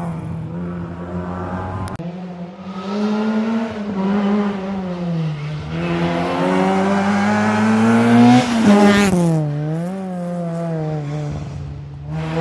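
Rally car engine at full throttle on a special stage, revs climbing and falling repeatedly through gear changes and lifts. It is loudest as the car passes about two-thirds of the way in, then the revs drop sharply.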